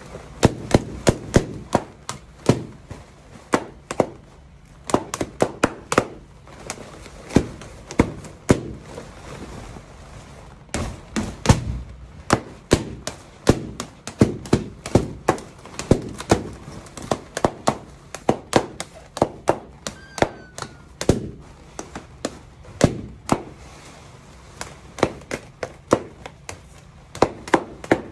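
Latex balloons from a balloon garland popping one after another: dozens of sharp bangs at an irregular pace, sometimes two or three a second, with a short lull about nine seconds in.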